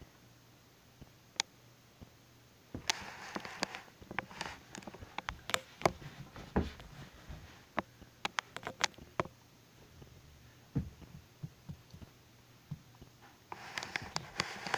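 Handling noise: scattered sharp clicks and knocks with rustling, as toys and the camera are moved about. It comes in two busy stretches, about three seconds in and again near the end.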